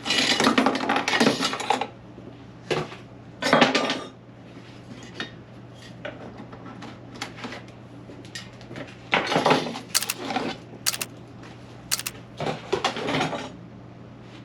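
Hard items clinking and clattering in irregular bursts as they are handled and moved about inside a carrying case, with three sharp clicks late on. A faint steady low hum sits underneath.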